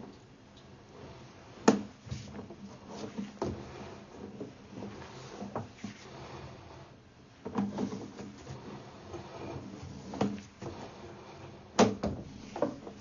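Irregular knocks and clunks of hard objects being handled, the loudest about two seconds in and near the end.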